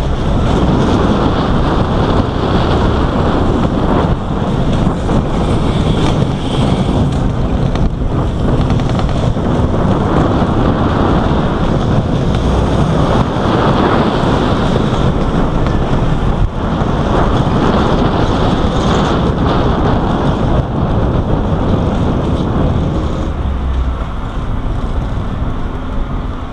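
Loud, steady wind noise buffeting the microphone of a camera riding a roller coaster car at speed, with a low rumble under it. It grows a little louder just after the start and eases slightly near the end.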